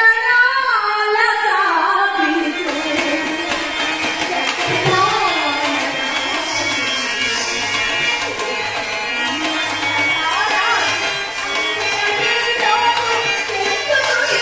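A Telugu drama song performed live: a voice sings a gliding melodic line over a sustained instrumental accompaniment, with a tabla beat coming in about four seconds in.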